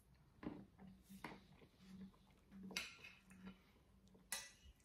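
Metal forks clinking and scraping on ceramic plates as slices of tiramisù are cut and eaten: a handful of light, sharp clinks over near silence, the two loudest about three seconds in and near the end.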